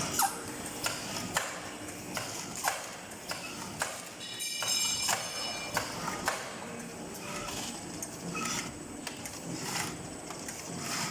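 Vertical automatic cartoning machine running, its mechanism and air cylinders clacking about once or twice a second as it folds and fills paper boxes, over a steady faint high whine. About halfway there is a brief higher ringing tone.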